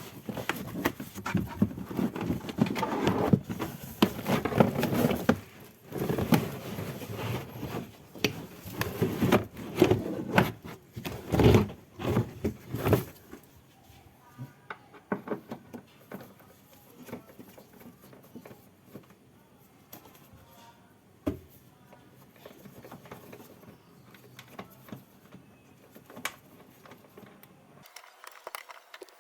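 Clattering and scraping of hand tools and metal parts being handled, busy for about the first thirteen seconds, then only occasional faint knocks.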